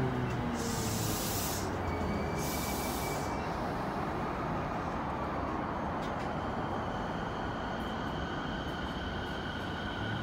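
Rinkai Line 70-000 series electric train at the platform: two short hisses in the first few seconds, then a steady electric whine joins the rumble as the train starts to pull out.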